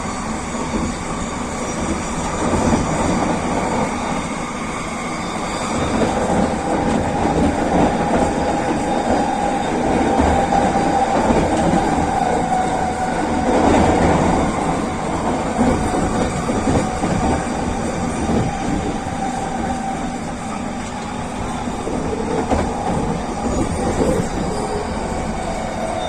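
SkyTrain rapid-transit train running along its track: a steady rumble of wheels on rail, with a steady whine over it through the middle of the stretch.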